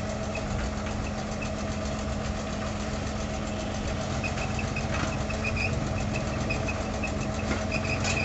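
Road roller's engine running steadily as the machine rolls slowly forward over loose soil fill, compacting it, growing a little louder near the end as it approaches.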